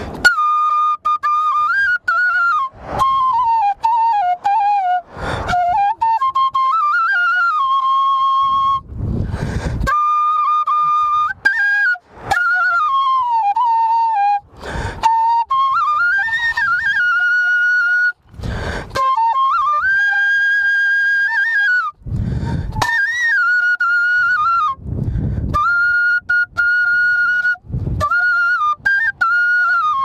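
Bamboo flute (bansuri) playing a slow solo melody, with notes held and slid between in phrases. Short breath noises fall between the phrases.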